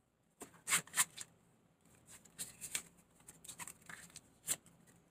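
A deck of Theory11 playing cards being cut and flourished by hand: faint, scattered snaps and slides of card stock, with the loudest clicks about a second in and near the end.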